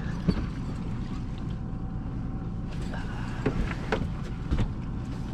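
Steady low wash of water and wind around a small aluminium fishing boat drifting on open sea. A few sharp knocks and clicks of gear against the boat come about half a second in and again between three and five seconds in.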